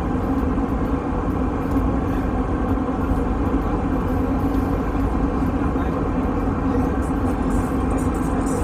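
Steady drone of an airliner in flight heard inside the cabin: engine and airflow noise at an even level.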